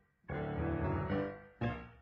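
Piano music: a phrase begins after a brief pause, dies away, and a short struck chord sounds near the end.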